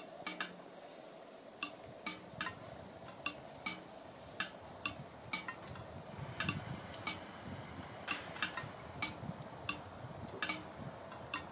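Maple sap dripping from metal spiles into nearly empty aluminum sap pails: sharp metallic plinks at uneven intervals, about two a second, the sign of the sap running well.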